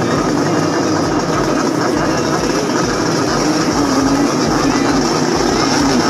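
Several Yamaha RX King two-stroke motorcycles running and revving together, a loud continuous engine sound whose pitch wavers as the throttles are worked.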